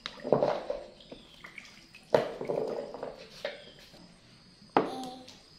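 Small green apricots being washed by hand in a metal basin of water: three separate sloshes and knocks of fruit and water, each dying away over about a second.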